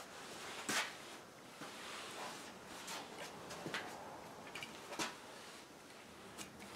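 Bristle brush stroking glaze across a varnished wooden tabletop, a soft swishing with several light knocks and clicks scattered through it.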